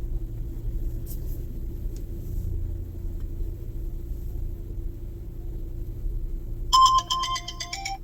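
Steady low rumble, then near the end a short electronic chime of a few stepped notes.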